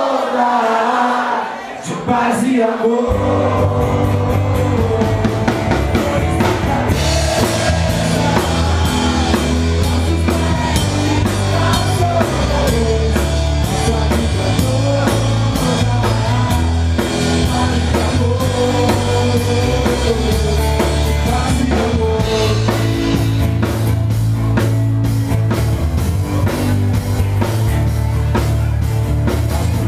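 Live rock trio playing: acoustic guitar and singing, with electric bass and a drum kit. Bass and drums come in about three seconds in, and the cymbals get brighter about seven seconds in.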